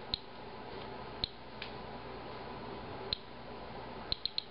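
Inspector Alert Geiger counter clicking at random intervals, each click one detected radiation count: single clicks spaced a second or more apart, then three in quick succession near the end.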